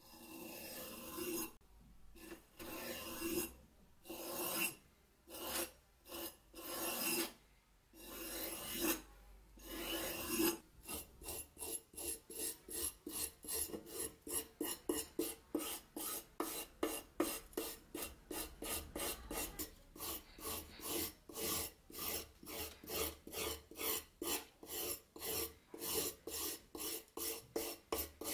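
Hand wire brush scrubbing flaky rust off a rusted steel knife blade. Scratchy strokes, irregular and slower for about the first ten seconds, then quick, even back-and-forth strokes about three a second.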